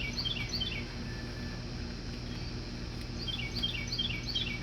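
A songbird singing two quick runs of short falling chirps, one at the start and another about three seconds in, over a steady low hum.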